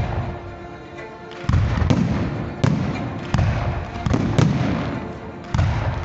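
Aerial fireworks shells bursting: after a short lull, a string of sharp bangs, each with a low rumbling tail, roughly one every half second to second from about a second and a half in.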